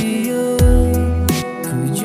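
Instrumental passage of a pop love song: sustained synth chords over a deep electronic bass whose notes slide downward, with sharp percussion hits at a steady beat.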